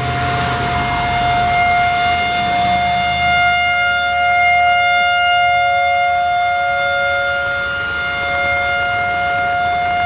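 Whelen WPS-3016 electronic siren sounding a steady tone as its speaker array rotates, with a second, lower tone joining for a few seconds midway. Tyre hiss from passing traffic on wet road is heard under it in the first couple of seconds.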